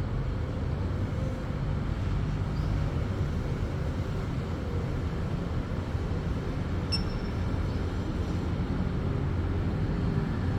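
Steady low rumble of road traffic and outdoor background noise, with one brief high chirp about seven seconds in.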